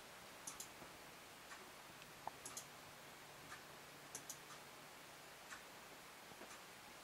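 Near silence: faint room hum with soft, sharp clicks scattered through, a pair close together about half a second in, another pair about two and a half seconds in, and a pair about four seconds in.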